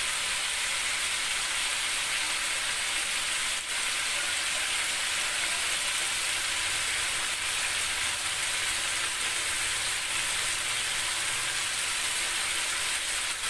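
Chicken pieces in spice paste sizzling in a steel wok: a steady frying hiss, with one faint click about three and a half seconds in.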